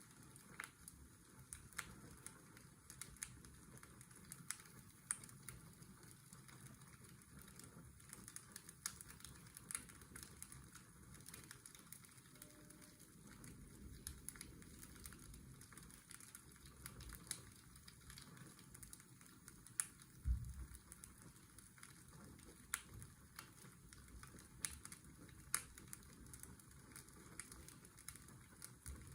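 Quiet fireplace crackling: irregular sharp pops and snaps over the steady hiss of a washing machine's white noise, with one low thump about twenty seconds in.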